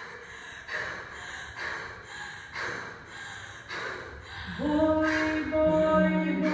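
A group of people breathing out together in short noisy breaths about twice a second; about four and a half seconds in, several voices begin holding long steady notes together in a chord.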